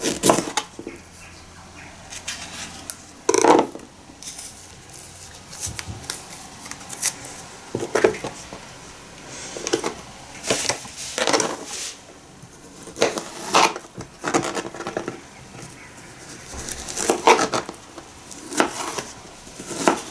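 A kitchen knife and hands knocking and scraping on a plastic cutting board while a banana is peeled and sliced: scattered short clatters a second or two apart, the sharpest about three and a half seconds in.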